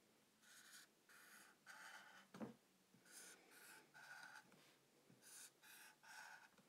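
Dry-erase marker rubbing across a small whiteboard as triangles are drawn: faint short strokes, about three to each triangle, with a soft thump about halfway through.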